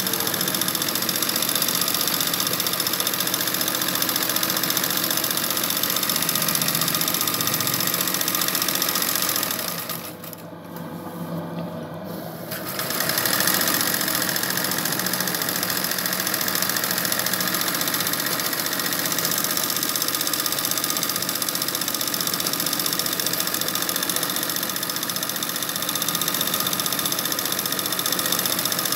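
Sewing machine running steadily in free-motion embroidery, its needle stitching a satin-stitch outline in glittery thread on hooped cotton fabric. The stitching drops away for a couple of seconds about a third of the way through, then starts again.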